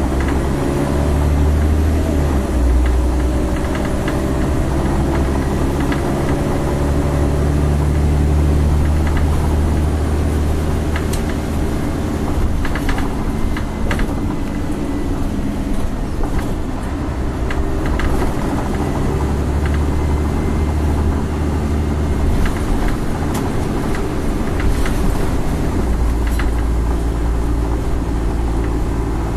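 Scania L113CRL bus's rear-mounted 11-litre six-cylinder diesel heard from inside the passenger saloon while the bus drives, its low note rising and falling as it pulls away and changes gear, over road noise. Occasional short rattles and knocks from the bus body.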